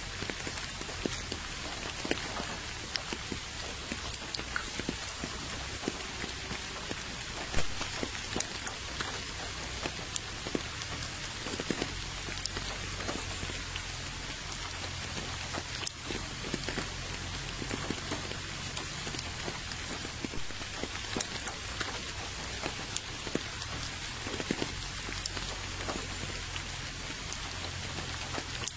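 Steady rain falling on a puddle and wet gravel path: an even hiss of rain with many small drop ticks scattered through it.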